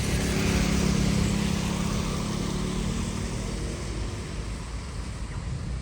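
A motor vehicle passing close by: a steady low engine hum with road noise, loudest about a second in and then fading away.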